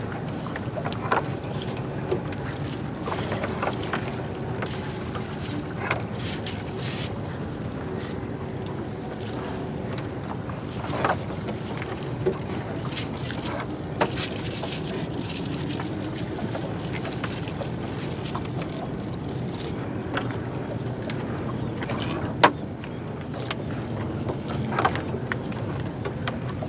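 A small river boat's engine running steadily as the boat moves, with a few scattered knocks, the sharpest near the end.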